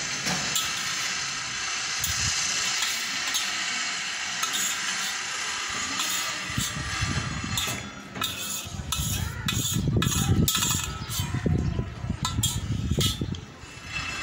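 Steel spoon scraping and clinking against a metal plate, gathering up the last of the food. From about halfway it becomes a run of sharper clicks and louder low knocks.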